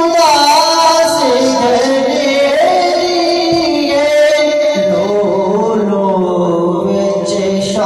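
A man's voice reciting a devotional naat, sung in long held, ornamented notes that slide slowly between pitches, with no instruments.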